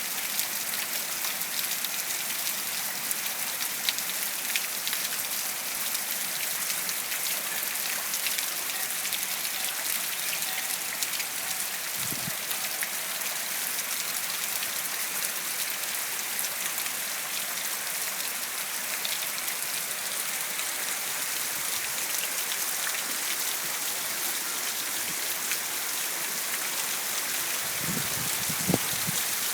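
Heavy hurricane rain falling steadily: a dense, even hiss full of countless small drop ticks.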